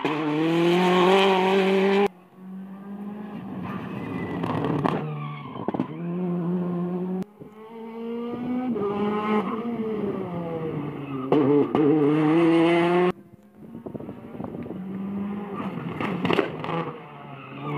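Turbocharged four-cylinder R5 rally cars passing at speed, engines revving up and dropping through the gears, with a few sharp cracks. Several passes are spliced together, so the sound changes abruptly about 2, 7 and 13 seconds in.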